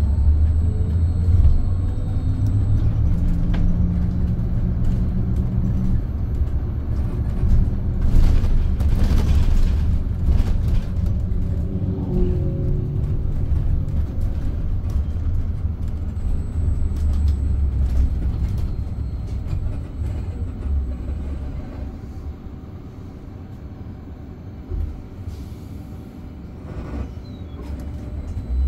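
Scania Higer Fencer F1 electric bus running, a steady low rumble with a faint high whine over it, and a burst of hiss about eight seconds in lasting around two seconds. The rumble eases off about twenty-one seconds in.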